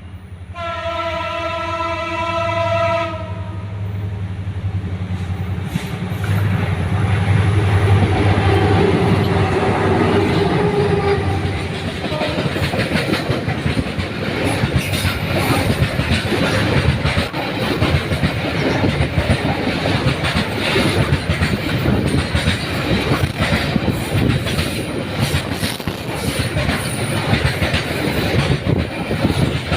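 A train horn sounds one steady blast, about three seconds long, starting half a second in. The train's low rumble then swells, and from about twelve seconds in the train passes with a dense, continuous clatter of wheels on the rails.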